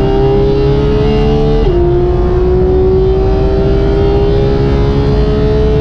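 Porsche 991.2 GT3's 4.0-litre naturally aspirated flat-six at high revs under hard acceleration, heard from inside the cabin. The pitch climbs steadily, drops sharply with an upshift about a second and a half in, climbs again, and drops with another upshift near the end.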